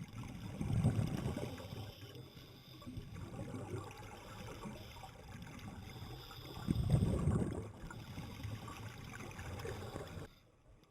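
Water sloshing and splashing, with two louder surges, one about a second in and one about seven seconds in. It cuts off abruptly shortly before the end.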